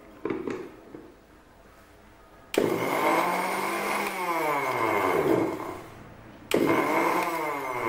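Electric kitchen mixer grinder pulsed twice to coarsely grind fresh herbs and green chilli with a little water. Each time the motor starts abruptly with a steady high whine and runs about three seconds. It then winds down, falling in pitch, before it is switched on again. A light knock comes shortly before the first start.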